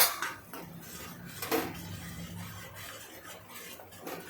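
A spoon scraping and stirring in a cooking pot of masala, with a sharp knock against the pot at the start and another about a second and a half in, over a low steady hum.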